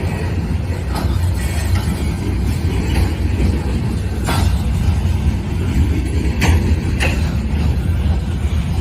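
Freight train passing close by: a loud, steady low rumble of wheels rolling on rail, with a few sharp clicks.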